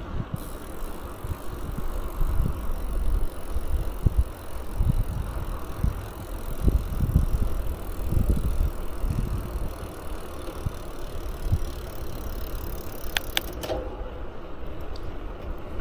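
Wind buffeting the microphone over the rolling noise of a bicycle being ridden. A steady high hiss stops suddenly near the end, just after two sharp clicks.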